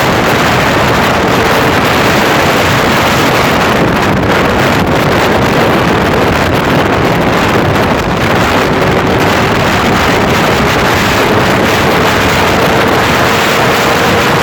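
Honda CBR600RR motorcycle's inline-four engine running loud and steady, its pitch dipping slightly past the middle, then slowly rising toward the end.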